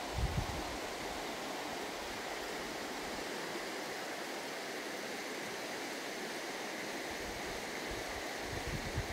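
Shallow river flowing over a stony riffle, a steady rushing. Wind buffets the microphone just after the start and again near the end.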